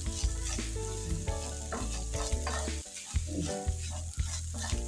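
Shredded cabbage, minced meat and peppers sizzling in a non-stick frying pan while a wooden spatula stirs them, with repeated scrapes and knocks of the spatula against the pan.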